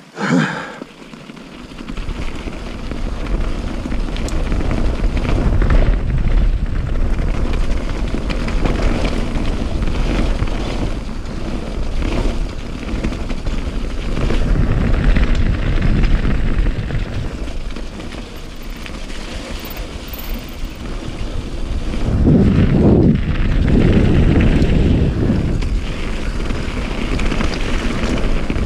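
A vehicle pulling away and getting up to speed, with heavy wind rushing over the microphone. It builds over the first few seconds and surges again a little after twenty seconds in.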